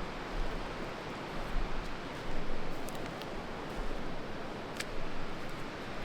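Steady rushing of a river flowing over rocks, with a few faint clicks.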